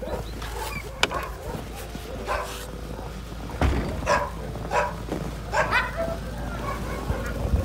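A dog yelping several times in short calls that fall in pitch, over a steady low rumble.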